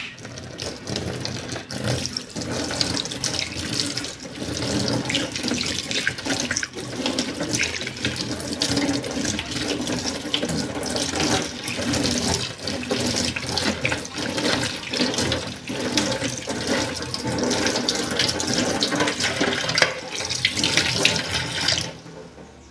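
Water running and splashing steadily, a dense spattering that starts abruptly and fades out shortly before the end.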